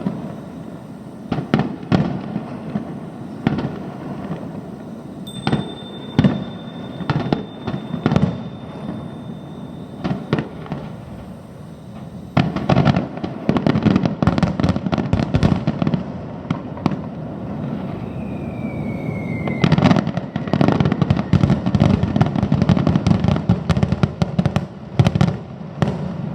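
Small fireworks going off: scattered sharp pops and bangs at first, then a dense, continuous run of crackling from about halfway on, with a high whistle held for a few seconds early and a short falling whistle later.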